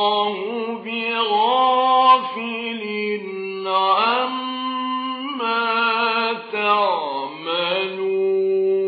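A male reciter's voice chanting the Quran in the mujawwad style: long held notes in a single melodic line, with sliding, ornamented pitch turns partway through.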